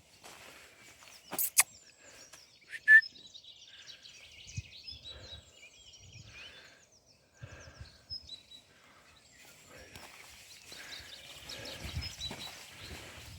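Small birds chirping and twittering all through, over outdoor ambience. Loud sharp clicks about a second and a half in and again near three seconds.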